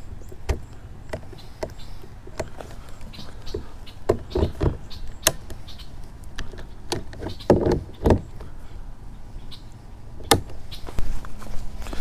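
Plastic and metal parts of a YakAttack Double Header track mount and LockNLoad rod-holder bases being handled and fitted together: a string of clicks and knocks, bunched about four seconds and eight seconds in, with a single sharp click near ten seconds.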